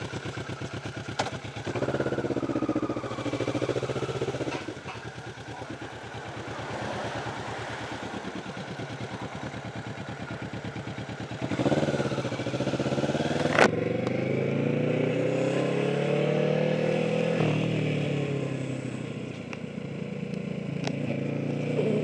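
Motorcycle engine running on the move, heard from the rider's seat with wind noise. About twelve seconds in the engine revs up, holds its pitch for a few seconds, then eases off again.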